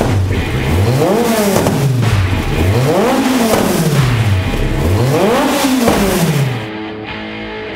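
Racing buggy's four-cylinder engine running at its first start, revved three times in slow sweeps that climb and fall back about two seconds apart, then settling to a steady idle near the end.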